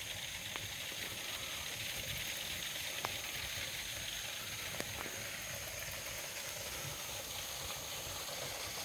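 Steady hiss of running creek water, with a few faint clicks.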